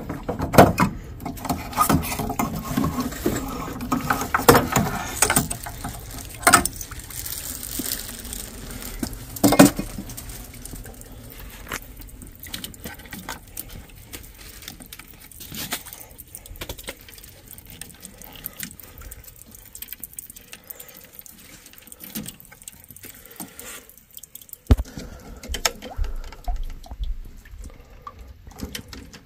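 Water splashing and trickling from the water heater's opened plumbing, mixed with irregular clicks and knocks of parts and tools being handled. It is busiest and loudest in the first ten seconds, then thins to scattered clicks with one sharp knock later on.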